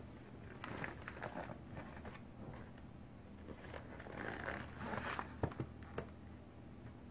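A cardboard fireworks box being handled and turned over by hand: irregular rustling and scraping, with a few sharp taps a little past halfway through.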